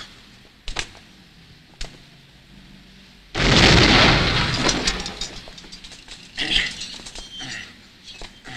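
Two light knocks, then about three seconds in a sudden loud crash that fades over a couple of seconds into scattered crackling clatter.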